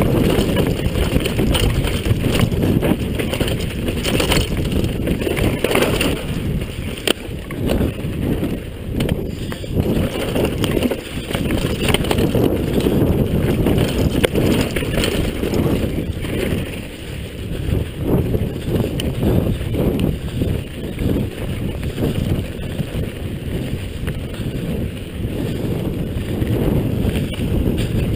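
Downhill mountain bike rattling over a rough dirt trail at speed: steady wind buffeting on the microphone with frequent knocks and clatter from the bike as it hits bumps.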